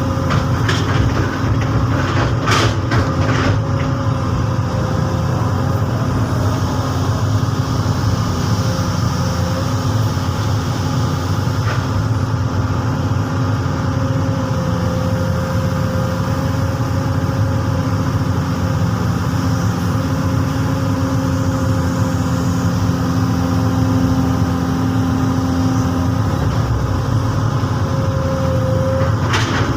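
Komatsu PC200 hydraulic excavator's diesel engine running steadily under digging work. A few sharp knocks come about one to three seconds in, and another near the end.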